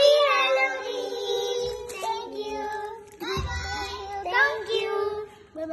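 Children singing in high voices: one long sung phrase with held notes, a short pause about three seconds in, then a second shorter phrase.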